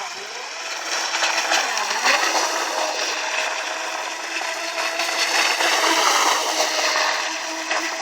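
Electric motor of a 4-cell RC speedboat running at speed: a steady whine over the hiss of water spray, its pitch wavering near the start and again near the end.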